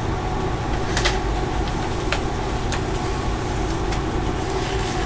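Disposable gloves being pulled on, giving a few short snaps and crinkles, over a steady machine hum.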